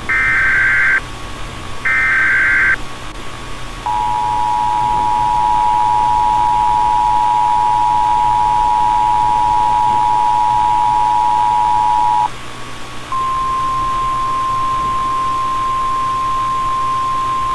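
Emergency Alert System tones as broadcast on NOAA Weather Radio, announcing an incoming alert (here a tornado watch). First come two one-second bursts of the buzzy, warbling SAME header data, the end of the three-burst header. About four seconds in the two-tone EAS attention signal sounds for about eight seconds, and after a short break the single steady weather-radio alert tone begins and holds.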